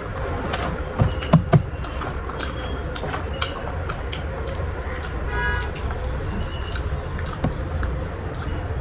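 Close-miked eating of chicken heads and feet by hand: chewing, bone crunching and wet mouth clicks and smacks, with three heavier thumps about a second in.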